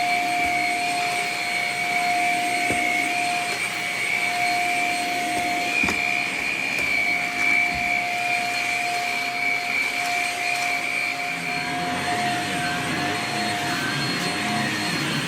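Shark Rocket corded stick vacuum running on its bare-floor and area-rug setting: a loud, steady, high-pitched whine over rushing suction, with a few faint knocks.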